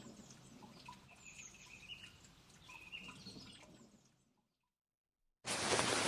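Faint birds chirping in a forest ambience, which fades to silence; about five and a half seconds in, a loud, steady rushing noise cuts in suddenly.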